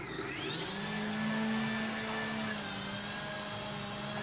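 The electric rotor motors of a JJRC Dusk 4-channel toy RC helicopter spin up with a rising whine on one-button takeoff. The helicopter then hovers with a steady high whine that dips slightly in pitch a little past the middle.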